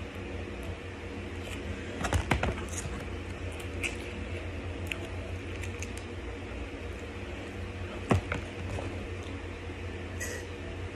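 Crinkling and squishing of small sauce packets being squeezed over a fried chicken sandwich, with a few sharp crackles about two seconds in and another near the end, over a steady low hum. A short sip through a straw comes at the very end.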